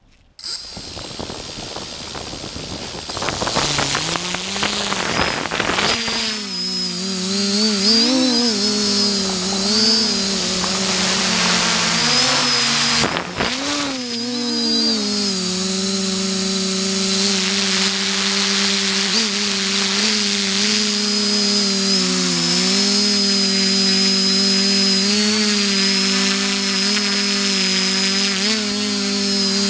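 XJ470 multirotor drone's electric motors and propellers, heard from the on-board camera. They start up suddenly, spin up unevenly for take-off, then run as a steady buzzing hum whose pitch keeps wavering up and down as the motors adjust to hold the drone in flight. There is a brief dip about halfway through.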